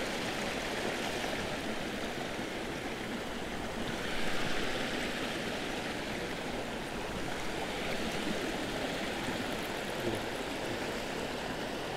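Shallow creek water rushing steadily over rocks and small drops, a little louder for a moment about four seconds in.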